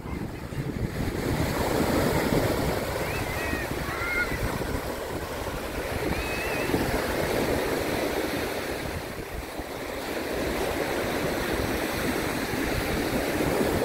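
Small sea waves washing onto a sandy shore, the surf noise swelling and easing slowly, with wind buffeting the microphone. A few faint, short high cries come through in the first half.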